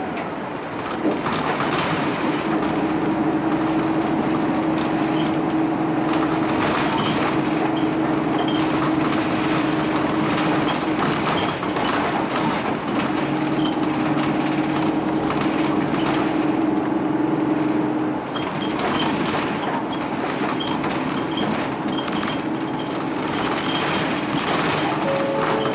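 Interior running sound of a Mitsubishi Fuso Aero Midi KK-MK23HM route bus under way: a steady drone from the diesel engine and drivetrain mixed with road noise. The drone holds steady, then eases about eighteen seconds in.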